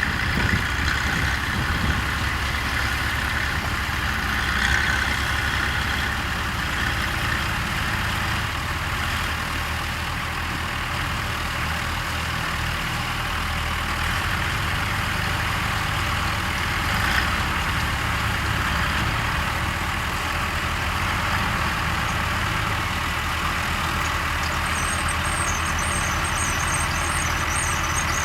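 Tractor engines running steadily alongside a working potato harvester, a Reekie Cleanflow 2000, with an even mechanical noise over the engine rumble. A high-pitched squeal joins in near the end.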